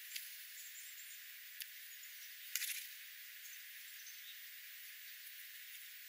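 Scrub jay pecking and picking through scattered birdseed on the ground: a few sharp clicks, then a brief cluster of rattling knocks about two and a half seconds in, over a steady hiss.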